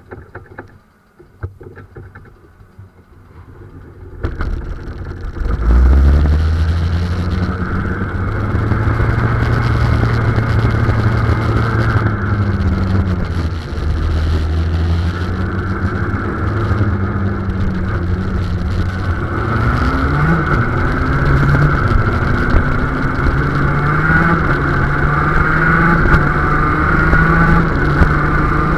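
KZ shifter kart's 125 cc two-stroke engine, heard onboard. It comes in loud about four seconds in, then runs hard under way, its pitch climbing and dropping again and again through the gears.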